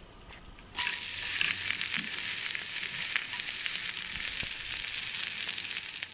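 Dubbed-in frying sound effect: batter sizzling and crackling on a hot griddle. It starts suddenly about a second in and cuts off abruptly.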